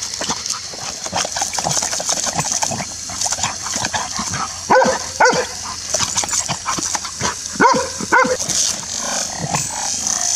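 A golden retriever biting at a garden hose's water jet: steady spray hiss and splattering with snapping and splashing, and the dog barks four times, in two quick pairs around the middle.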